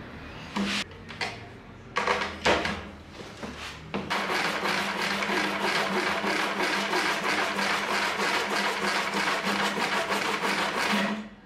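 A hand saw cutting through wooden blocks clamped in a vise, in quick, even strokes of about four a second that stop near the end. A few knocks and handling sounds come before the sawing starts, about four seconds in.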